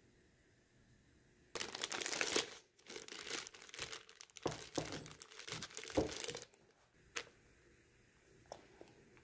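Clear plastic zip-top bag crinkling as a hand opens it out and presses it down inside a container, a run of loud rustles lasting about five seconds, followed by a few light clicks.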